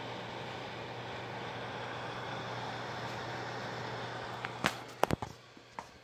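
Spectrafire electric fireplace space heater's fan running with a steady whoosh and low hum. About five seconds in, a few sharp clicks come and the running noise drops away sharply.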